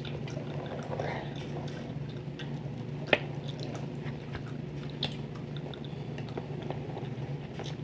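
Close-miked wet gum chewing and smacking, with scattered sharp clicks, the loudest about three seconds in, over a steady low hum.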